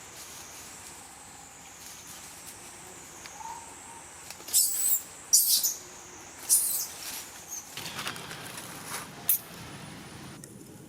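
Several short, shrill, high-pitched animal calls, three loud ones in the middle and fainter ones after, over a thin, steady high tone.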